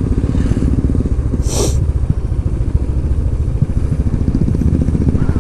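Royal Enfield motorcycles riding by with their engines running in a steady, rapid pulse, and a brief hiss about a second and a half in.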